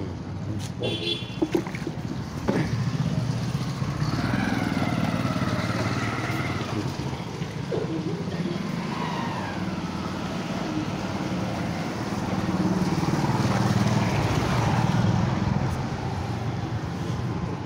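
A motor vehicle engine running over a steady low rumble, its pitch rising and falling; it grows louder about twelve seconds in.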